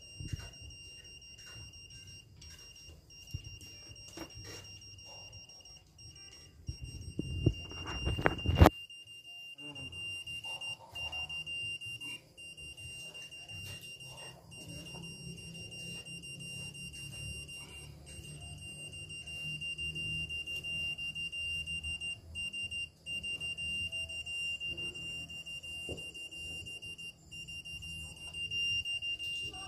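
Satellite signal meter giving a steady high-pitched beep tone as the dish is aimed, with only brief breaks. A burst of knocking and rustling from handling the dish mount, about seven to eight seconds in, is the loudest sound.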